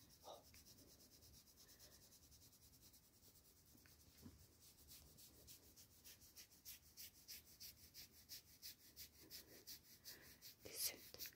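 A horse chewing hay: a faint, steady rhythm of crunching grinds, clearer after the first few seconds.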